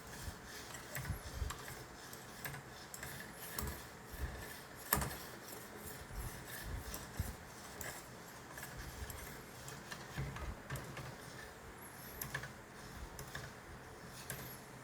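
A polishing stone on a guided knife-sharpening system rubbing in irregular strokes along a skinning knife's bevel, with light clicks and taps of metal and stone and one sharper knock about five seconds in.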